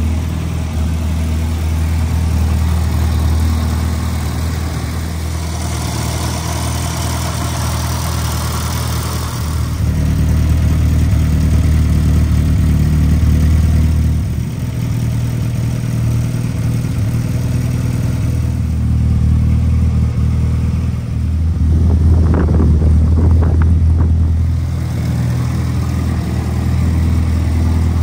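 1964 MG Midget's BMC A-series four-cylinder engine idling steadily. It runs briefly louder about three-quarters of the way in, like a light blip of the throttle.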